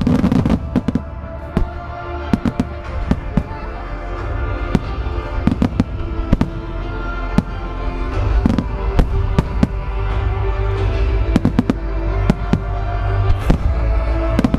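Nomura Fireworks' finale shells and low fan barrages bursting: a rapid, irregular string of sharp cracks over a continuous deep rumble. Music with long held tones plays underneath.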